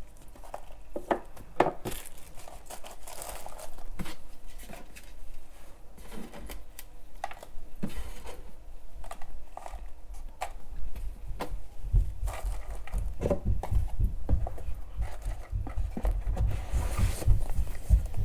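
LED headlight bulbs and their packaging being handled and packed back into the box: plastic and cardboard crinkling and rustling, with scattered clicks and light knocks. A low rumble joins in over the second half.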